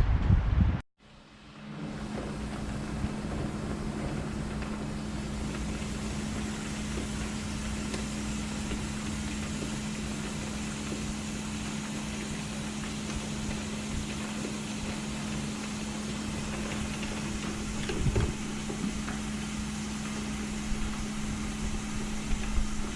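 Wind and rain buffeting the microphone for about a second, then a sudden cut to a steady machine hum with a constant low tone under an even hiss, with one brief louder swell near the end.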